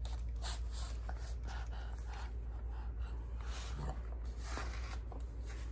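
Faint scattered rustling and soft handling noises over a steady low hum.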